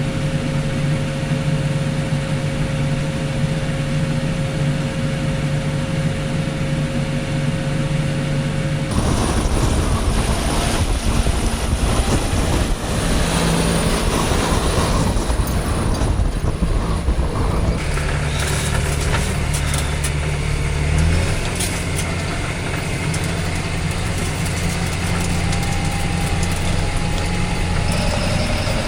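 Pickup truck engine running at low speed, steady and low, with a rougher, noisier stretch in the middle and a change in engine note about two-thirds of the way through.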